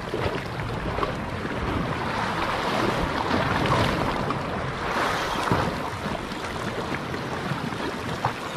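Sea waves washing steadily against the shore rocks, with wind buffeting the microphone.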